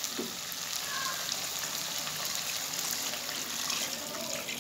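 Meat stock, the water the goat meat was boiled in, being poured steadily into a pot of frying meat and potatoes: a continuous pouring splash.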